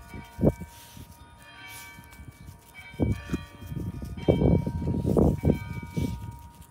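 Bells ringing, several clear tones sounding together and struck again at uneven intervals, over louder low thumps and rumbles.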